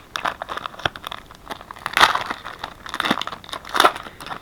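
Trading card pack wrapper being torn open and crinkled by hand: irregular crackling, louder about two seconds in and again near the end.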